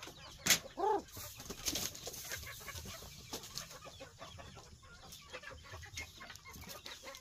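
Hungry chickens clucking and calling while they wait for feed. There is a sharp knock about half a second in, the loudest sound, with a short call right after it, then scattered clucks and small clicks and scratches.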